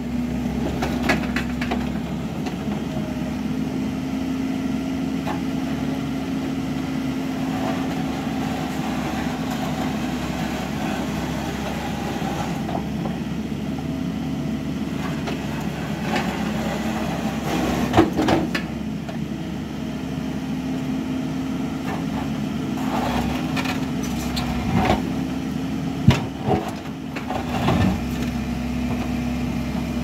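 Bobcat mini excavator's diesel engine running steadily under hydraulic load as the bucket digs out soil and gravel along a concrete slab. Scrapes and knocks of the steel bucket against gravel and concrete come through now and then, most often in the second half, with one sharp knock among them.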